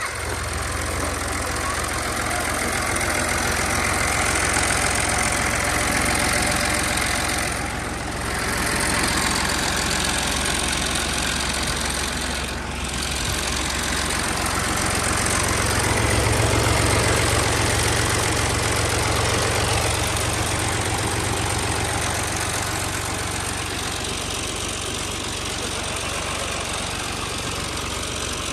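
Fiat 480 tractor engine running steadily under load as it drives a wheat thresher, under the thresher's dense, even rushing clatter. The engine hum grows louder and deeper for a few seconds past the middle.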